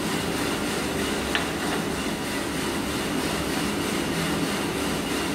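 Small drum coffee roaster running steadily: the drum turning with its charge of Arabica beans, now at the even-yellow stage of the roast before first crack, along with the machine's motor and fan.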